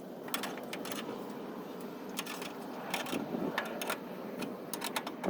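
Irregular metallic clicks and rattles over a low mechanical noise as a jack is worked to lift a truck cab.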